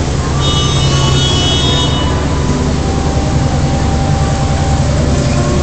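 A vehicle engine runs steadily with a loud low rumble. About half a second in, a high-pitched tone cuts through for about a second and a half.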